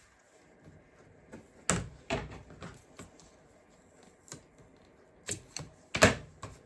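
Craft materials being handled on a tabletop: a string of irregular knocks, taps and clicks, loudest about two seconds in and again near the end.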